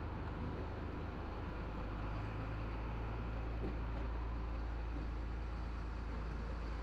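Chenglong truck's diesel engine running steadily at low revs, a constant low drone heard from inside the cab while the truck creeps along.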